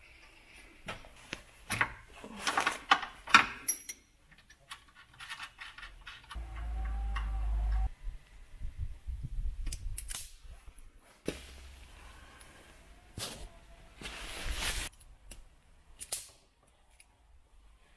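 Hand-tool and electrical wire handling: a string of clicks, snips and rustles from a wire-stripping tool and cable, busiest in the first few seconds. A low rumble lasts about a second and a half near the middle.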